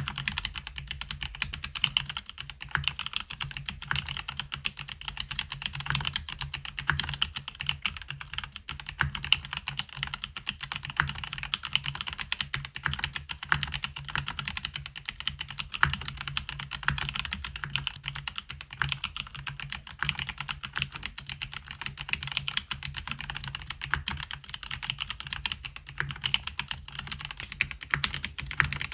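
Continuous typing on a MelGeek Mojo68 keyboard with plastic housing, Gateron Brown tactile switches and stock ABS double-shot MCR-profile keycaps: a steady stream of light, crisp key presses.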